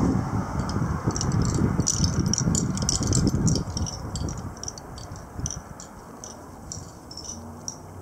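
Gusty thunderstorm outflow wind buffeting the microphone, strongest in the first three or four seconds and then easing, with a fast, irregular high ticking rattle throughout.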